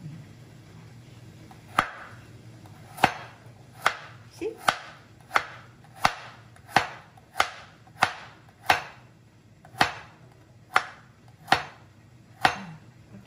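Chef's knife slicing a carrot into thin rounds on a plastic cutting board: a sharp knock of the blade on the board with each stroke, about fourteen strokes in a slow, fairly even rhythm starting about two seconds in.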